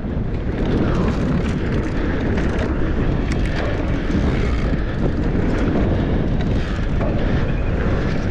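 Wind buffeting a GoPro's microphone on a fast mountain-bike descent, with the tyres running over a dirt trail and scattered clicks and rattles from the bike.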